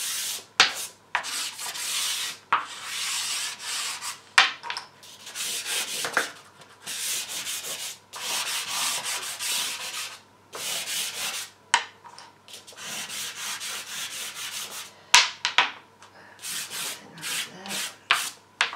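Soft pastel sticks scraping across cartridge paper on a wooden board, laying down a base coat in runs of quick strokes with short pauses. Sharp ticks come here and there as the stick strikes the paper.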